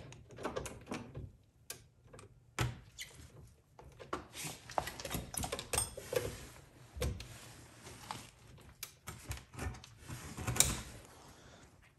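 Irregular metallic clicks, clunks and rattles of hand tools, a ratchet with a socket extension, working on a car's rear brake caliper, with a few louder knocks among them.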